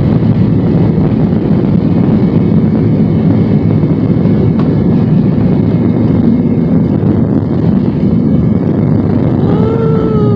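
Loud, steady roar inside the cabin of a Boeing 737-900ER during takeoff: CFM56-7B turbofan engines at high thrust plus airflow. Near the end, a tone rises briefly and then glides slowly down.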